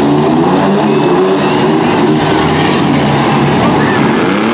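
Demolition derby mini trucks' engines running together as the trucks drive around the dirt arena, loud and steady, with one engine revving up near the end.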